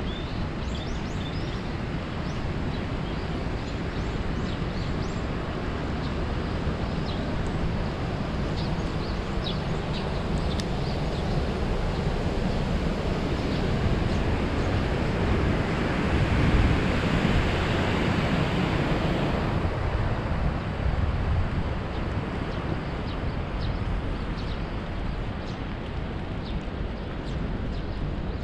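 Wind buffeting the microphone of a head-mounted GoPro Hero 7 while cycling, a steady low rush of noise that swells louder for a few seconds past the middle and then eases.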